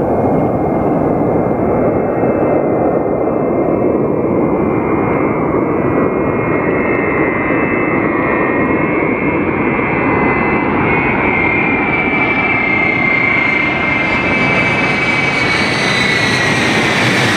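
Ilyushin Il-76 transport's four turbofan engines as it flies in low on approach: a steady jet roar with a high whine that slides down in pitch near the end.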